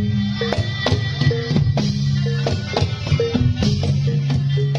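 Reog gamelan music: drum strokes over sustained low gong tones and a repeating pattern of short higher metallophone notes, about two a second, in a steady rhythm.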